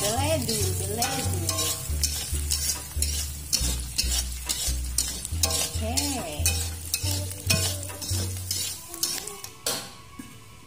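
A metal spatula stirring and scraping diced food in sauce around a wok, with a quick scrape every half second or so over a light frying sizzle. The stirring stops about nine seconds in.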